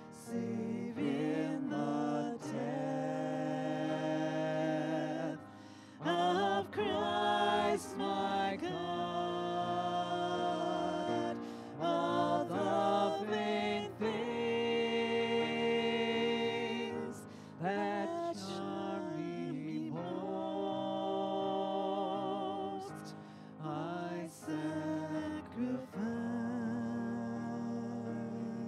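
A woman singing a slow hymn into a microphone to piano accompaniment, phrase by phrase with short breaths between.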